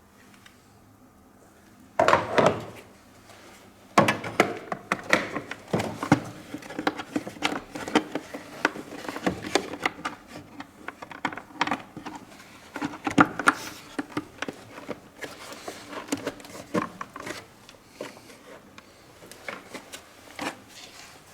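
Hands working on a car's plastic engine air filter housing and filter: a short scraping burst, then a long run of irregular clicks, knocks and rattles of plastic parts being handled.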